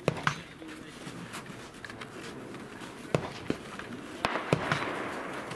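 Break-action over-under gun being handled at the firing line: a string of sharp metallic clicks and knocks as the action is opened and fresh cartridges are loaded, the loudest near the start and about four and a half seconds in.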